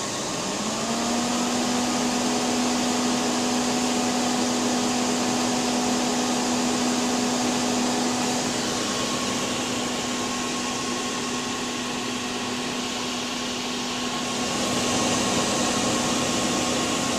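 Power Mac G5's cooling fans running loud with a steady hum and rush of air, the hum rising in pitch about half a second in as they spin up. The sound shifts around halfway through and swells again near the end. The machine is failing to start, which the owner traced to RAM not fitted in pairs.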